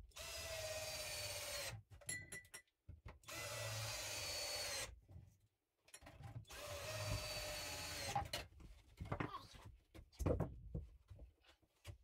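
Cordless drill driving screws into wooden wall boards: three runs of the motor of about two seconds each, with short pauses between, then a few knocks.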